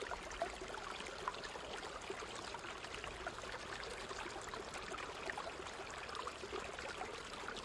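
A thin stream of water trickling from a miniature pump's spout into a small plastic pool, a steady splashing with small drips.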